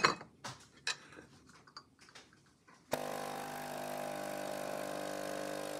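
A few sharp clicks and knocks, the loudest right at the start. About three seconds in, a Nespresso Lattissima One capsule coffee machine starts brewing, its pump running with a steady hum as coffee pours into a mug.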